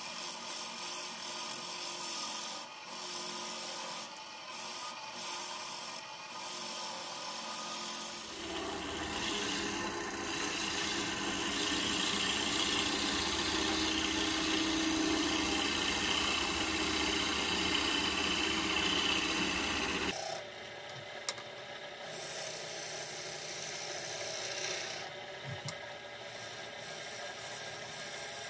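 Bowl gouge cutting the outside of a spinning hardwood bowl blank on a wood lathe, a continuous scraping hiss of shavings being peeled off. The cut gets heavier and fuller for about twelve seconds in the middle, then lightens again.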